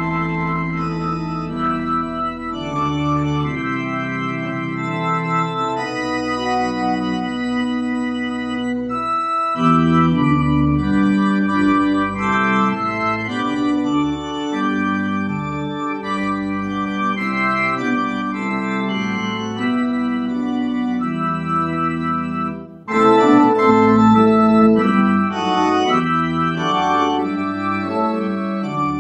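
Organ playing slow, sustained chords that change every second or two, with a brief break about 23 seconds in before it comes back louder.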